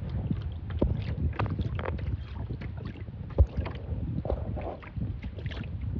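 Wind buffeting the microphone with small waves lapping and slapping against a kayak hull on choppy water. Scattered knocks run throughout, with one sharper knock about three and a half seconds in.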